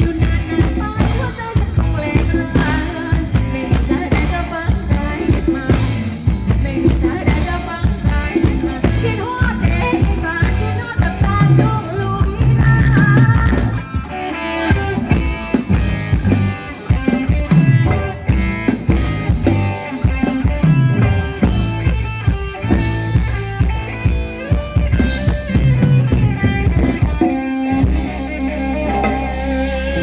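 Loud band music with drum kit, bass and guitar keeping a steady dance beat, the dance-band music of a Thai ramwong show.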